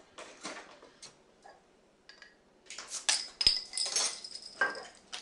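Glassware and dishes clinking and knocking as a glass of water is fetched, sparse at first and busier in the second half, with one sharp knock about three and a half seconds in.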